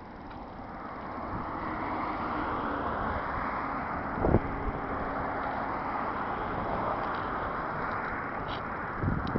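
Steady rushing noise of passing highway traffic mixed with wind on the microphone, building over the first two seconds and then holding. A single sharp knock comes about four seconds in, with a few more near the end.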